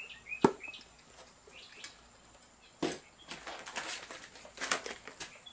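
Handling noise: a single sharp knock about half a second in, then irregular crinkling and rustling of plastic packaging from about three seconds in, as parts are put down and picked up.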